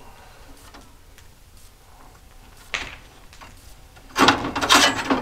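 Steel band-saw blade being worked onto a sawmill's band wheels: a brief metal scrape near the middle, then a louder burst of scraping and rattling as the blade flexes against the wheel and housing near the end.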